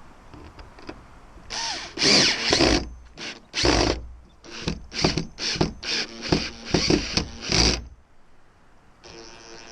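Drill with a Phillips driver bit driving screws: a few longer runs, then a quick series of short trigger bursts as each screw is snugged down.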